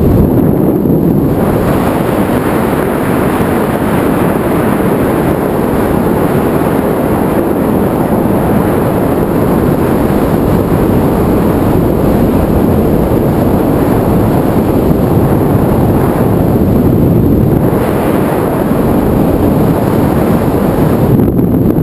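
Steady rush of wind buffeting a wrist-mounted camera's microphone during a tandem descent under an open parachute. It is heavy in the low end and eases briefly about a second in and again around seventeen seconds.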